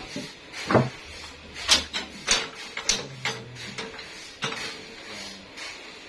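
A string of sharp knocks and clanks, about seven in a few seconds, as a teak log is shifted and clamped on a band sawmill's carriage.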